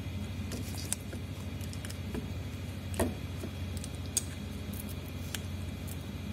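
Scattered small clicks and taps as a phone battery's protection-board flex is pried off and handled on a workbench, the sharpest about three seconds in, over a steady low hum.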